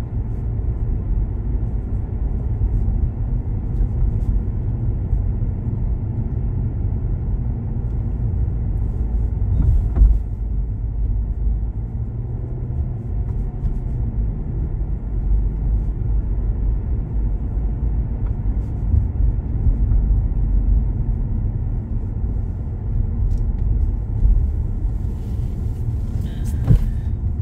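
A car driving, heard as a steady low rumble of engine and tyre noise, with a brief knock about ten seconds in.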